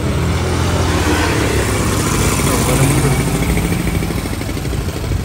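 A ferry's diesel engine running with a steady low drone, under a constant rushing noise.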